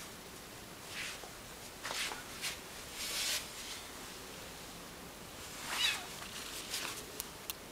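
Scattered faint rustles and light taps of a snow Bengal kitten moving about on a wooden floor, with a brief louder sound about six seconds in and a few sharp ticks near the end.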